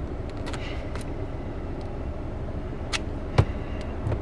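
Light handling clicks and taps from tape being pressed onto a holster inside a car, with one sharper knock about three and a half seconds in, over a steady low rumble.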